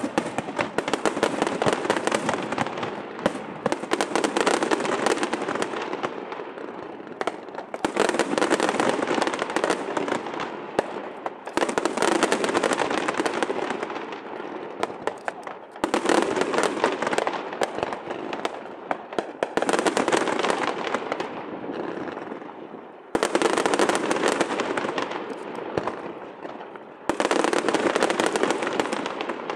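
Aerial fireworks bursting in rapid volleys: dense bangs and crackling in waves that start suddenly every three to four seconds and tail off before the next.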